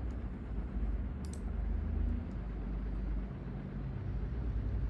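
Steady low rumble of background noise, with one sharp click about a second in and a few faint ticks.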